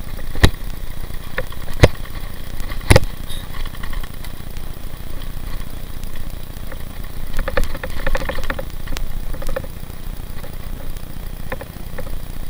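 Rumble of wind and tyres on a rough lane from a bicycle on the move, with three sharp knocks in the first three seconds.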